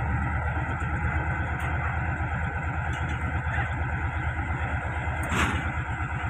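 Passenger train pulling away slowly, its coaches rolling past close by with a steady low rumble. One sharp clank about five seconds in.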